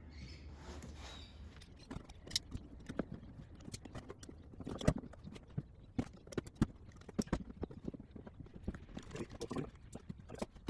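Cutting into trim for the brace mount: a run of irregular sharp clicks and snaps, the loudest about five and six and a half seconds in.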